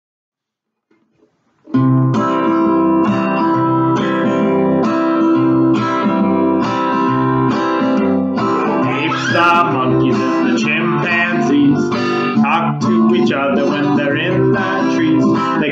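Strummed acoustic guitar playing a steady rhythmic accompaniment, starting about two seconds in. A voice starts singing along about halfway through.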